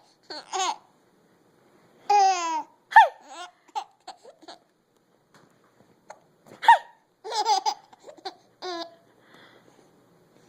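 A person hiccuping twice, each hiccup a sharp, high squeak that drops in pitch, about four seconds apart. Short bursts of high-pitched laughter come between and after the hiccups.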